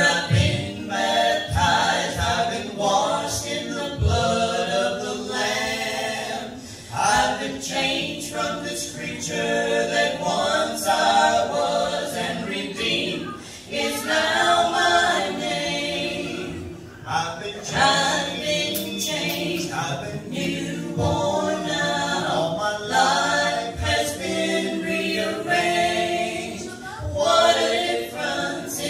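A small group of voices singing a gospel song in harmony, in continuous phrases with brief breaths between lines.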